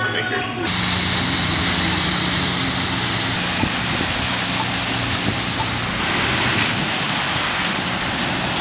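Cars driving through deep street floodwater, their tyres throwing up spray: a steady rushing splash of water.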